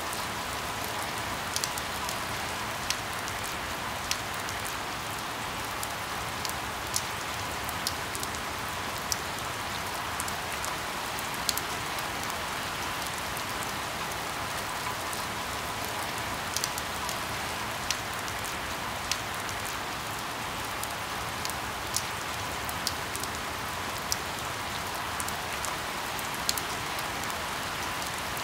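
Steady rain falling, with single close raindrops ticking sharply at irregular moments, about one every second or two.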